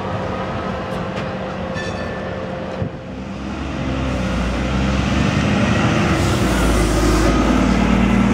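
Double-decker diesel bus pulling away and driving past close by, its engine getting louder and climbing in pitch from about three seconds in, loudest near the end, with a faint rising whine underneath.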